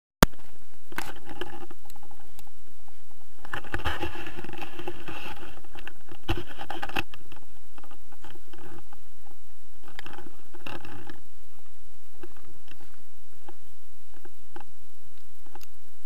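Rustling, scraping and clicking handling noise from winter clothing and paraglider harness gear rubbing against a helmet-mounted camera. It is heaviest from about four to seven seconds in and again around ten seconds.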